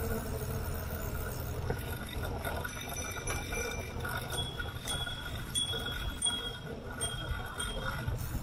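Bicycle ride on a paved cycle track: a steady low rumble of tyres and wind, with a run of light, high clinks about halfway through.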